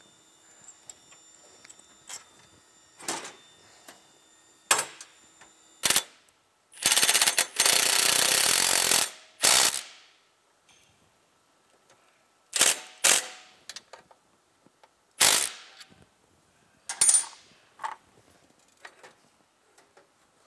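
Cordless impact driver spinning a socket onto bolts in short trigger bursts, with one longer hammering run of about two seconds near the middle as a bolt is run down.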